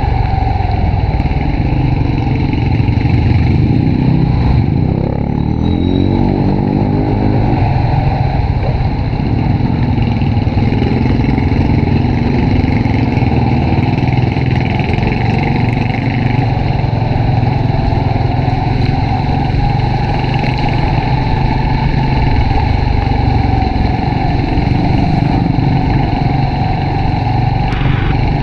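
Honda RSX 110 underbone motorcycle's single-cylinder four-stroke engine running steadily while being ridden, with constant road and wind noise. Its pitch rises briefly about five seconds in.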